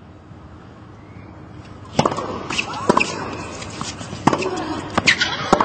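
Tennis ball struck by racquets in a rally: a sharp hit about two seconds in, then more hits roughly a second apart, over a hushed crowd.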